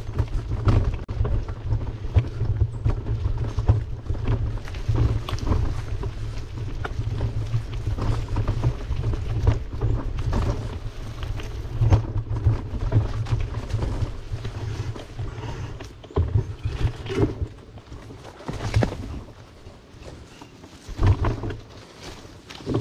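Wind buffeting a camera microphone while cycling: a deep, uneven rumble that rises and falls in gusts.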